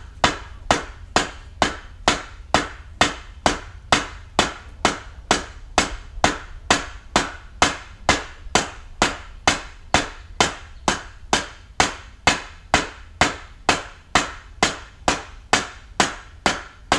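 Hammer blows on the metal frame of a canvas safari tent, struck in a steady rhythm of about two to three blows a second, each with a short ringing tail.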